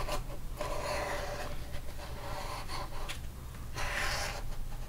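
A bone folder rubbed firmly along paper strips stuck down on cardstock, pressing them flat in several scraping strokes.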